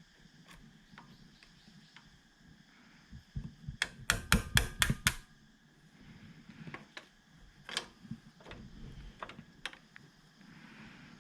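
Hand tools clicking and tapping against the metal band clamp of a drive shaft's outer CV-joint boot as the band is worked off. There are scattered single clicks, with a quick run of about six sharp metallic clicks around four seconds in that is the loudest part.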